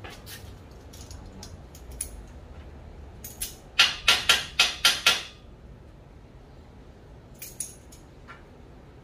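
A metal hand tool clicking against an aluminium frame: a quick run of about six sharp clicks about four seconds in, with lighter scattered clicks before and after.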